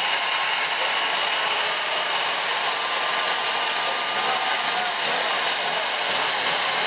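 Homemade experimental jet engine running steadily: a loud rushing hiss with a high whine that slowly rises in pitch.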